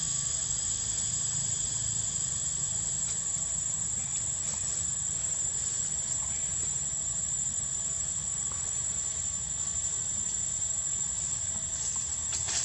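Steady, high-pitched drone of insects such as crickets or cicadas, unbroken throughout.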